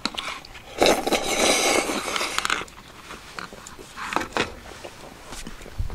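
Close-up eating sounds: about two seconds of crunching and chewing, then quieter scrapes and light clicks of metal chopsticks in a plastic bowl.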